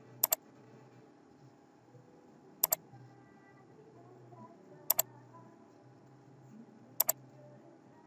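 Computer mouse clicking four times, about two seconds apart, each a quick pair of sharp clicks, over a faint low hum.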